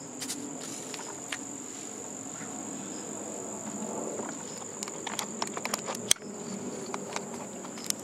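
A steady high-pitched chorus of crickets, with a run of sharp clicks and knocks about five to six seconds in as a camcorder is taken off its tripod.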